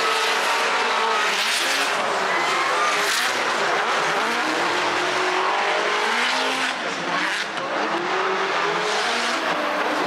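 Drift cars on track, their engines revving up and down over and over while the tyres squeal and skid.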